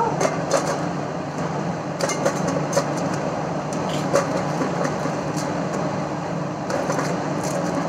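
A steady low hum with a few faint clicks and taps, from food being handled in a pot.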